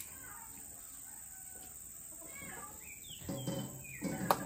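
Domestic chickens clucking, with a cluster of calls about three seconds in. A single sharp knock near the end.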